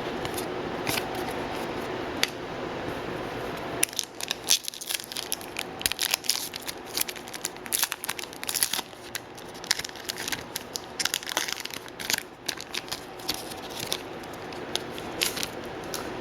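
Foil wrapper of a hockey trading-card pack being torn and crinkled by hand as the cards are handled, a rapid run of sharp crackles starting about four seconds in.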